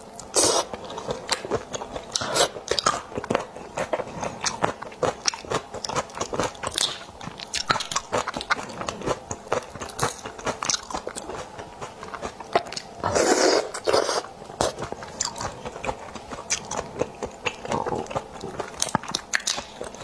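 Close-miked eating sounds of raw shrimp: a dense, irregular crackle of shells being cracked and peeled by hand and chewed, with a couple of longer, louder wet sucking sounds, the biggest about thirteen seconds in.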